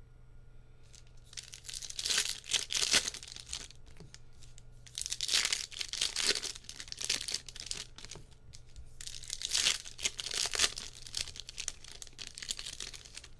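Topps Holiday trading card pack wrappers being crinkled and torn open by hand, in three bursts of rustling.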